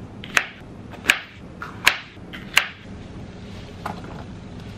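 A ceramic knife chopping bell pepper on a plastic cutting board: four sharp chops about three quarters of a second apart. Near the end come softer knocks as the chopped vegetables are pushed off the board into a pan.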